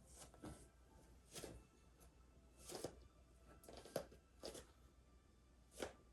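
Faint rustling and soft brushing noises of a person moving on the floor, clothing and hands against a mat, about seven short bursts at irregular intervals roughly a second apart.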